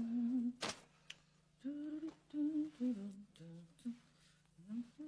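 A woman humming a tune to herself in short held notes, with a sharp snap about half a second in and a fainter click about a second in.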